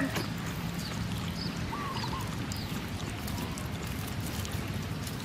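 Puppies lapping milk from a shallow tin lid: faint, steady wet lapping and slurping, with a few faint short chirps.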